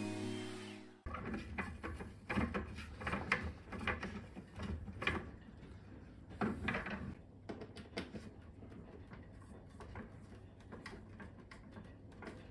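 Background music ending about a second in, then a hand screwdriver turning screws into a Dyson V15 wall-mounted charging dock: irregular clicks, scrapes and knocks, busiest in the first half and lighter ticking later.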